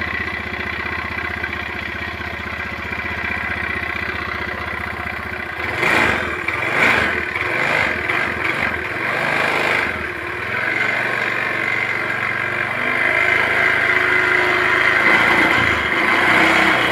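Honda BeAT Pop automatic scooter's single-cylinder engine running just after a kick start. It idles steadily, is blipped several times with the throttle between about six and ten seconds in, then runs on a little faster. With the engine oil temperature (EOT) sensor replaced by a bolt, it runs without the stuttering it had before the fix.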